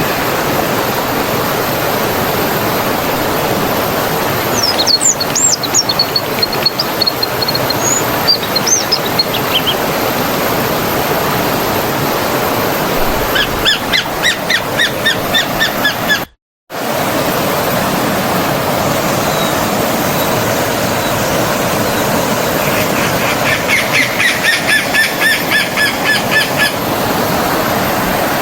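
Stream water running steadily with birds calling over it: a few sliding whistles about five seconds in, then fast trills of repeated notes around a third of the way through and again near the end. The sound cuts out completely for a split second a little past halfway.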